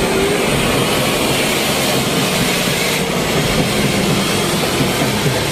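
John Deere 5210 tractor's three-cylinder diesel engine running loud and steady under heavy throttle while the tractor rides a wheelie on its rear wheels.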